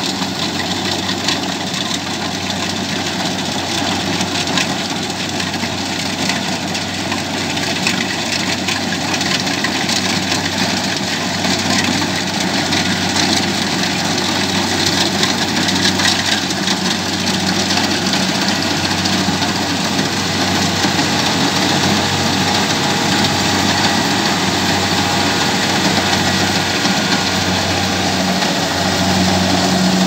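Kubota rice combine harvester running steadily under load as it cuts through standing rice, its engine drone mixed with the mechanical rattle of the cutter and threshing works. It grows a little louder as the machine comes closer.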